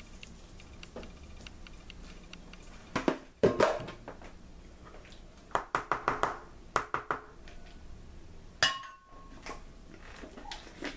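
Kitchen dishes and utensils clinking and knocking: a loud pair about three and a half seconds in, a quick run of short clatters around six to seven seconds, and a single clink with a brief ring near nine seconds.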